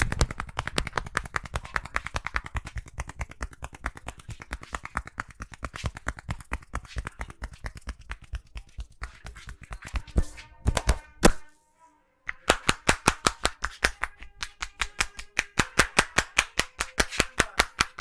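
Rapid, even percussive hand strikes of a barber's head massage, hands tapping and slapping on the head, about seven strikes a second. The strikes pause for about a second roughly two-thirds of the way through, then resume.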